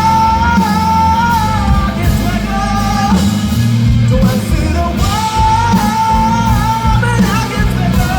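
Rock band playing a song: long held melody notes over bass and drums, with a short break in the melody about three seconds in before it comes back.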